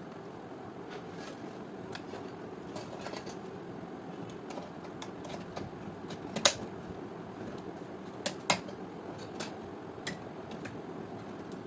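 Scattered light clicks and taps over a steady background hiss, with two sharper clicks about six and a half and eight and a half seconds in.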